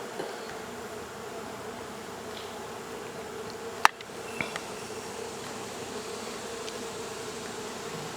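Steady buzzing of a mass of honey bees disturbed from their hive in a wall. A single sharp click comes just before the halfway point, followed by a couple of small knocks.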